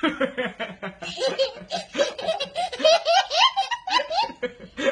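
A toddler laughing uncontrollably: a long, unbroken fit of short, quick belly-laugh bursts.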